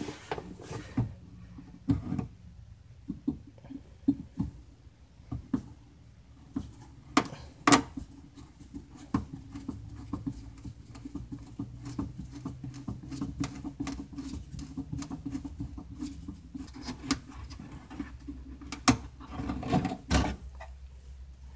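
Scattered small clicks and scrapes of a screwdriver turning a bumper screw while pliers grip the fastener to stop it spinning, metal tool tips on plastic.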